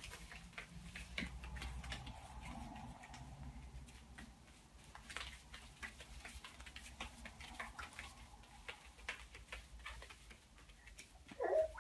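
Faint, irregular light clicks and taps from a small dog scampering and twisting about, with a toddler's bare feet stepping on the floor mats, over a low room hum.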